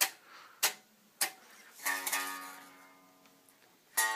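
Solo guitar: three short, sharp muted strikes, then a chord left to ring and fade, then quick chord stabs near the end.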